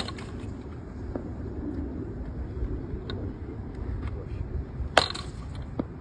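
A bat hitting a ball twice, about five seconds apart, each a sharp crack with a brief ringing tail, followed by a few lighter knocks, over a steady low rumble.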